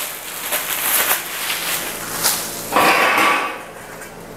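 Plastic wrapping crinkling and rustling as it is pulled off black stainless-steel dish-rack parts, with the metal pieces knocking and clinking against each other. The sound gets louder about three seconds in.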